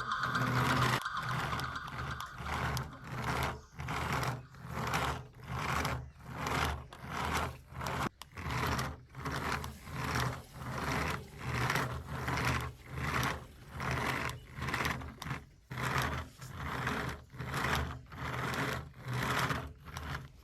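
Small electric motor and plastic gears of a toy remote-control car whirring in even pulses, about one and a half a second.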